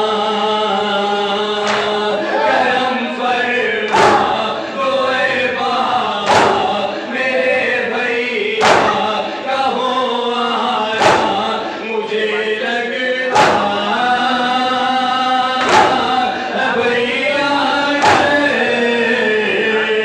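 Shia nauha (lament) chanted by male voices into a microphone, with the mourners' chest-beating (matam) striking in unison about every two and a half seconds, eight strikes in all.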